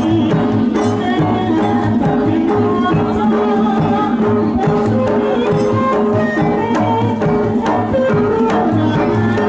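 Jaranan accompaniment music: hand drums play a driving, repeating rhythm under sustained melodic instruments.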